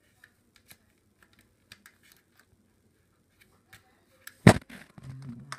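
Sparse light clicks and taps, then a single sharp knock about four and a half seconds in.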